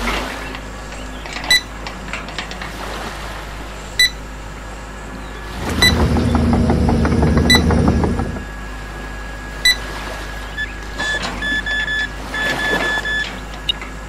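Radio-controlled excavator model working its arm and grapple: its electric motor whirs in one burst of about three seconds in the middle. Sharp clicks come here and there, and a run of short high beeps follows near the end.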